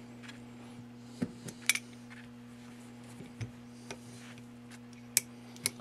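Small metal clicks and clinks of 1851 Navy revolver parts being handled and set down on a workbench: a handful of short scattered taps over a steady low hum.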